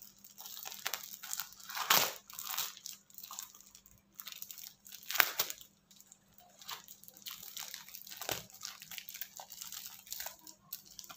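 Brown wrapping paper being pulled open and crumpled by hand, an irregular crinkling and tearing, with two louder crackles about two and five seconds in.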